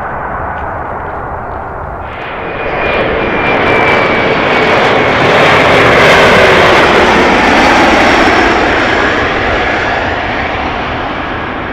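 A Bombardier CRJ-700's two rear-mounted GE CF34 turbofans pass low overhead on landing approach. The jet noise grows louder from about two seconds in, peaks midway and then fades, and the engine whine drops in pitch as the jet goes by.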